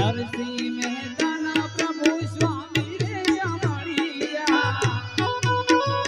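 Harmonium playing the melody of a Gujarati devotional thaal song over a quick, steady beat on tabla-type hand drums, with deep drum strokes about four times a second. In the middle a wavering melody line joins the held harmonium tones.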